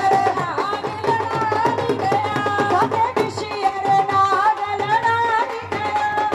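Women singing a Punjabi folk song through microphones over a steady, fast dhol drum beat.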